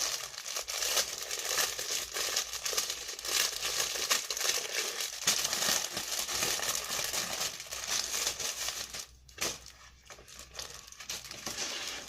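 Packaging crinkling and rustling as a T-shirt is unwrapped and handled, dense and continuous at first, easing off about nine seconds in.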